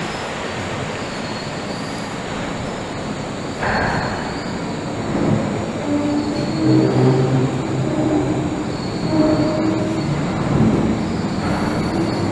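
Wuppertal Schwebebahn suspension railway car running along its overhead rail: a steady rumble of the wheels on the track. From about five seconds in the sound grows louder and takes on a pitched whine and squeal.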